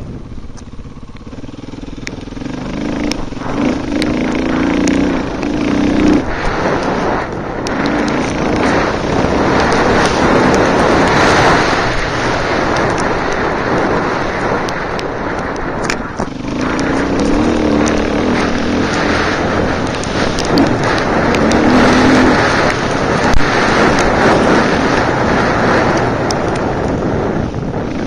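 Off-road dirt bike engine under way on a trail, revving up and easing off again and again as the rider accelerates and backs off, heard from a helmet camera with wind rushing over the microphone. It is quieter for the first couple of seconds, then runs loud.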